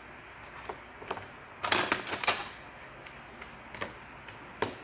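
Scattered plastic clicks and knocks from a laptop being handled on a workbench, with a louder cluster of knocks about two seconds in and one sharp click near the end.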